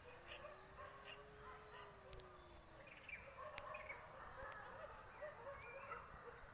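Faint outdoor ambience of small birds chirping, many short scattered calls, with a long low tone gliding slightly up and then down through the first three seconds.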